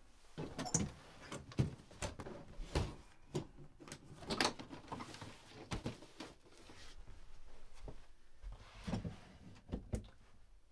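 Irregular knocks and clatter of packing: a suitcase handled on a bed and wooden dresser drawers opened and shut.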